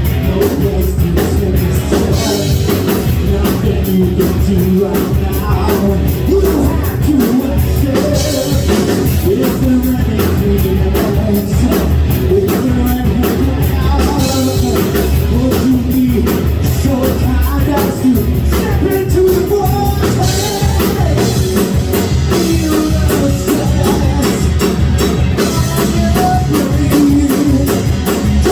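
Rock band playing live: a drum kit keeps a steady beat under guitars, with singing.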